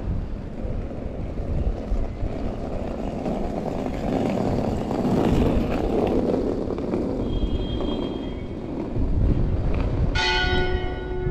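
Steady outdoor city background noise that swells for a few seconds in the middle. Near the end a church bell strikes and rings on.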